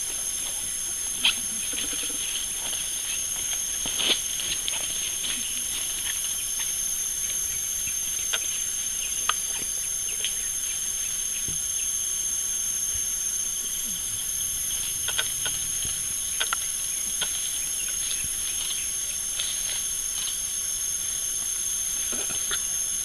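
Steady high-pitched drone of rainforest insects, with scattered sharp snaps and rustles of leaves and stems as gorillas move and play in the undergrowth.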